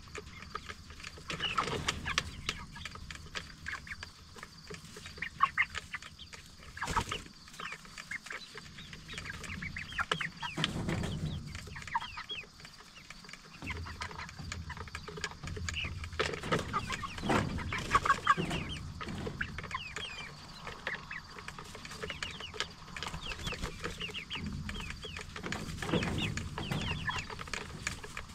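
A flock of 44-day-old Cornish Cross broiler chickens clucking continually in short, overlapping calls, with some low rustling and a single sharp click about seven seconds in.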